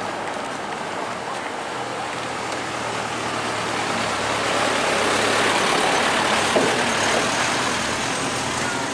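A road vehicle going past, its rushing noise swelling to a peak about six seconds in and then fading, over a steady low hum.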